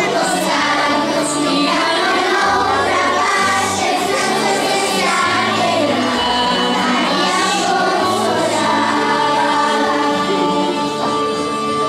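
A choir of young children singing a song together over an instrumental accompaniment.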